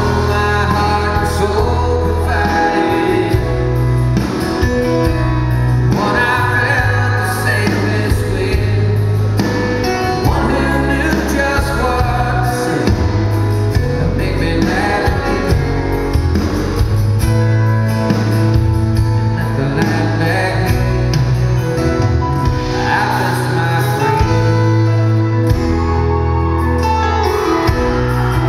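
Live country band playing a slow ballad, with a male lead voice singing over bass and guitars.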